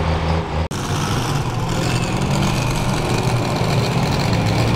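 Diesel truck engine running at a steady pitch, with a sudden brief dropout in the sound under a second in.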